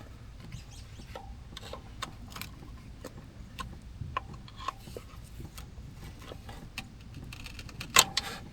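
Scattered light clicks and taps of tools and small metal parts being handled during an oil and filter change, with one sharper click about eight seconds in.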